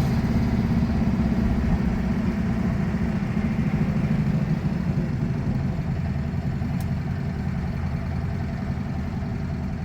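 1977 VW Brasília's air-cooled 1600 flat-four engine on twin carburettors, running as the car drives along, heard from inside the cabin. It gradually gets quieter as the driver eases off.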